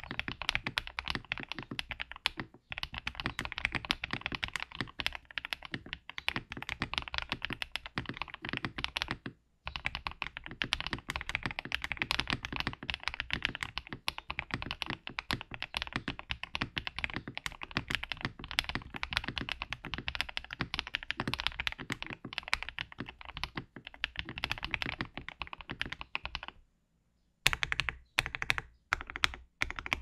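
Fast typing on a mechanical keyboard fitted with lubed Akko Cream Yellow linear switches, in an Akko Top75 acrylic-case keyboard with a brass plate, PCB foam and PBT keycaps. The typing runs as a continuous stream of keystrokes with brief pauses about two and a half seconds in and just before ten seconds. Near the end comes a longer pause, followed by slower keystrokes in short groups.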